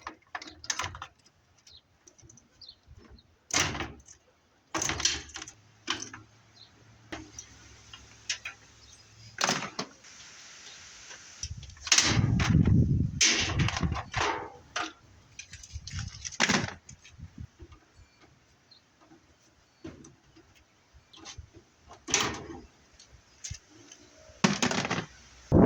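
Washing machine being taken apart for scrap: scattered knocks, clanks and rattles of its metal panels and parts being handled. There is a steady low hum from about six to ten seconds in, and heavier thumps about twelve, sixteen and twenty-five seconds in.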